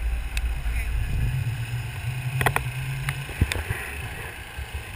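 Golf cart driving along: a continuous low rumble with a steady low hum from about one second in to past three seconds, and a few sharp clicks and knocks from the cart jolting.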